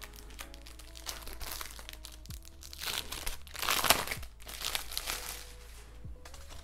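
Paper envelope being handled and opened by hand, with paper rustling and crinkling. The rustling is loudest about three to four seconds in.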